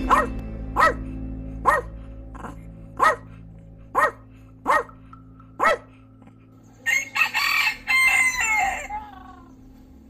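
A puppy yapping: about eight short, high barks a little under a second apart. About seven seconds in, a rooster crows once for about two seconds, its pitch falling at the end.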